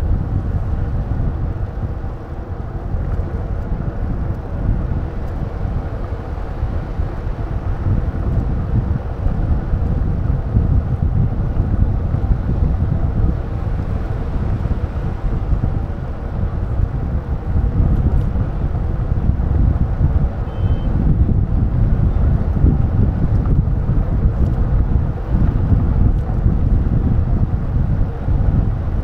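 Wind buffeting the microphone of a moving bicycle, with a steady low rumble of road and traffic noise. A brief faint high beep sounds a little past two-thirds through.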